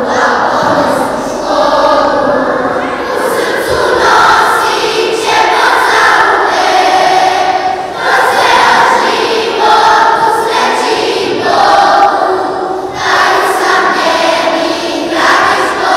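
A group of children singing together as a choir, in short sung phrases of about a second each.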